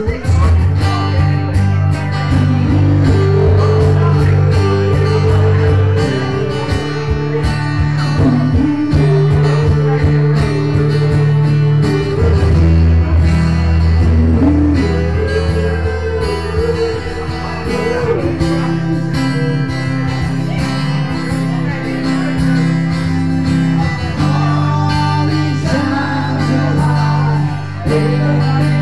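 Live acoustic music: a strummed guitar with a singing voice carrying the tune over held bass notes that change every few seconds.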